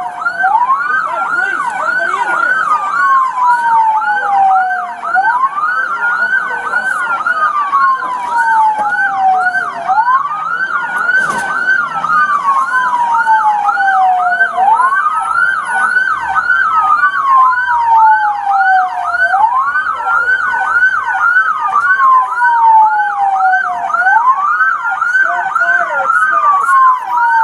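Two emergency-vehicle sirens sounding at once: one on a slow wail that rises quickly and falls slowly about every five seconds, the other on a fast yelp sweeping up and down about three times a second.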